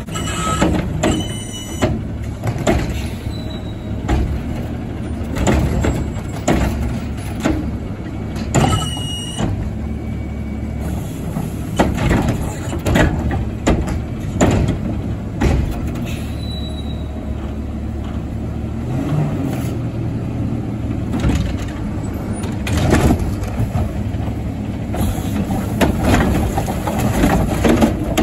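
McNeilus front-loader garbage truck with a carry can, its diesel engine running steadily throughout. There are two short high squeals, one near the start and one about nine seconds in, and knocks and clatter from the truck and its arm. Near the end the arm lifts a yard-waste cart.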